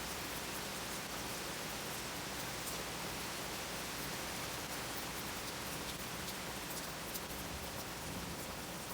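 Steady rain during a thunderstorm: an even hiss with scattered drop ticks.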